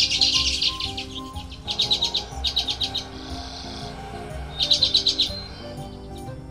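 Common redpoll calling in several runs of rapid, dry chattering notes, with a short buzzy note about three seconds in. Soft background music plays underneath.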